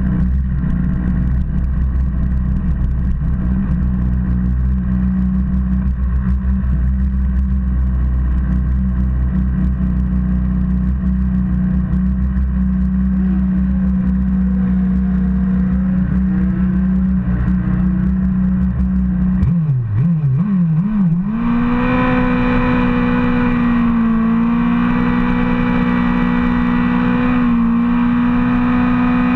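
Drag-racing motorcycle's engine running at a steady idle, given a few quick blips of the throttle about twenty seconds in, then holding a higher, steady note.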